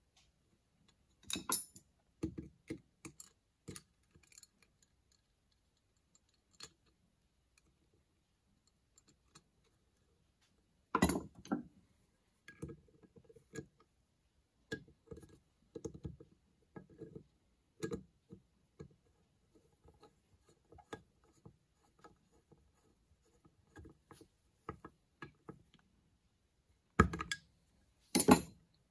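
Scattered light clicks and taps of a screwdriver and small metal parts against a Carter Ball and Ball carburetor body as parts are fitted back into it. There is a sharper knock about a third of the way in and two loud clicks near the end, with near silence between the taps.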